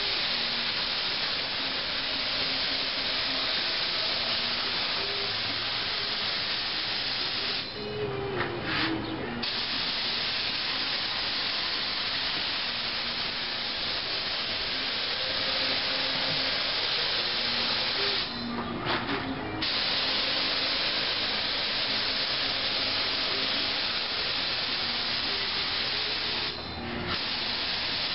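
Air-fed paint spray gun, a cheap Harbor Freight model, spraying automotive paint with a steady hiss that stops briefly three times.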